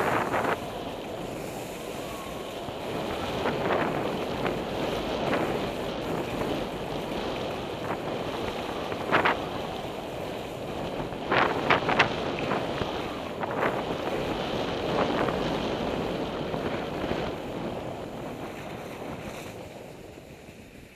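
Skis sliding and scraping over wet, slushy spring snow, with wind rushing over a helmet-mounted camera's microphone. The rush swells and eases, with a few sharp scrapes around the middle, and fades near the end.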